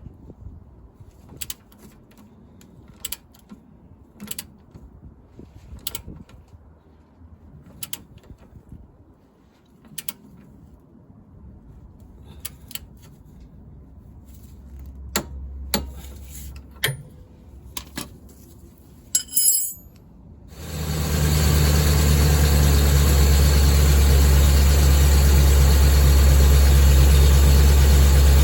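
Scattered sharp clicks and knocks. Then, about twenty seconds in, a Land Rover Discovery 2's engine starts and settles into a steady idle.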